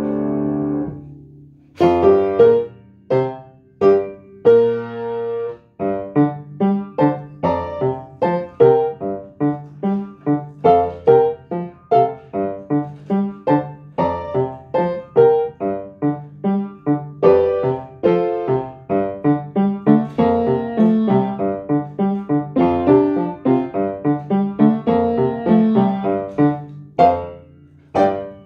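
Upright piano played by hand: a held chord dies away, then after a short pause a lively run of short, detached notes and chords, ending on a final chord that fades out.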